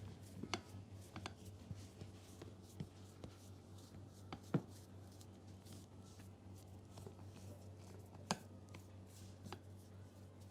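Barber's hands during a head massage: scattered soft taps and short sharp clicks, the loudest about four and a half seconds in and another a little after eight seconds, over a steady low hum.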